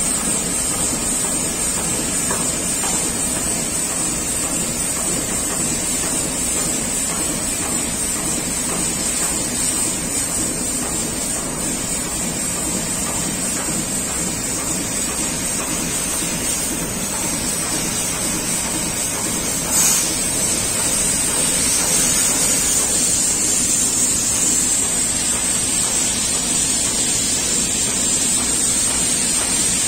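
Fiber laser cutting head of a retrofitted Trumpf laser cutter fly-cutting sheet steel: a steady high hiss from the assist-gas jet over a low machine rumble, with one sharp tick about twenty seconds in.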